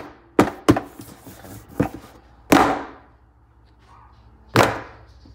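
Close handling of a printed paper sheet: two quick taps, then a few sharp rustling swishes. The two loudest swishes come about two seconds apart.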